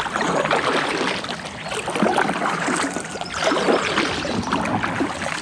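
Kayak paddle strokes splashing in river water, with splashes every second or two over the steady wash of the water.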